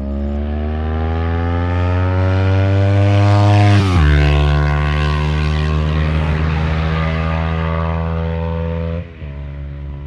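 Kawasaki Ninja 400 parallel-twin engine through a LeoVince Factory S full stainless-steel exhaust, revving up as the bike accelerates closer, rising in pitch and loudness. Its pitch drops sharply as it passes about four seconds in, holds steady, then drops again with a fall in level near the end.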